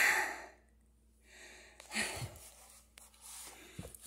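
A loud breathy sigh at the start, then quieter rustling and rubbing of a cloth towel wiping spilled water off the floor, with a brief louder swish about two seconds in.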